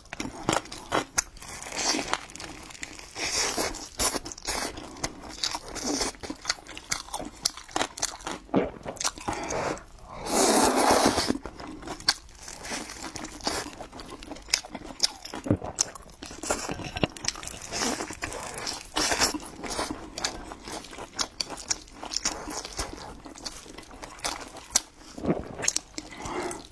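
Close-miked eating: biting and chewing crisp food, with many sharp crunches and wet mouth sounds, and a louder, longer noisy stretch about ten seconds in.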